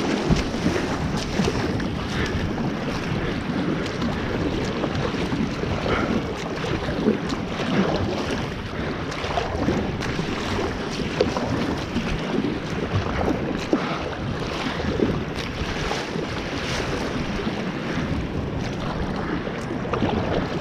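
Sea kayak being paddled through choppy, breaking water: a steady rush of water along the hull with frequent short splashes from the bow and paddle, and wind buffeting the microphone.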